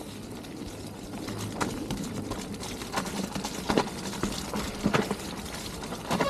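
Mountain bike rolling down a rough, wet trail: steady tyre and drivetrain rattle with several sharp knocks as the wheels strike obstacles.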